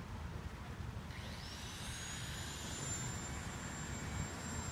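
Tilt-A-Whirl ride spinning: a steady low rumble of the ride's motion and wind on the phone's microphone, with a thin high whine that rises about a second in and then holds steady.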